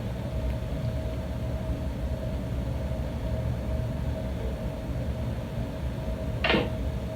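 Steady low background rumble with a faint constant tone above it, and one brief short sound about six and a half seconds in.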